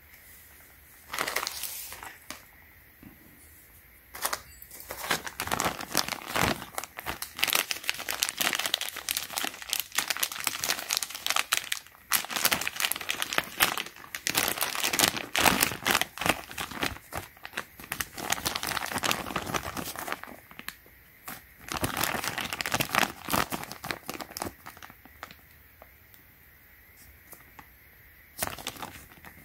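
Clear plastic bag holding a new Oregon saw chain crinkling as it is handled and pulled open by hand, in long bursts with short pauses.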